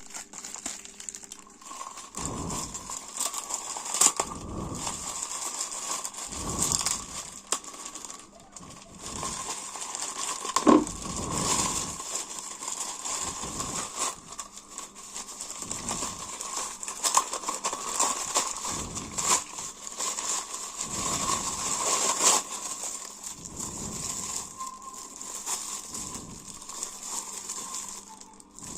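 Packaging being unwrapped by hand: irregular crinkling and rustling with scattered clicks and light knocks as the package is handled and opened.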